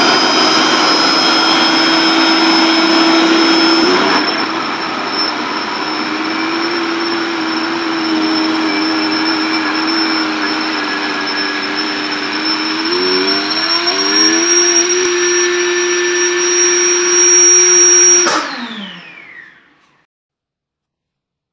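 Built-in electric air pump of an idoo inflatable air mattress running steadily as it inflates the bed, with a low hum and a high whine. Its pitch wavers a little past the middle; near the end it is cut off and whines down to silence.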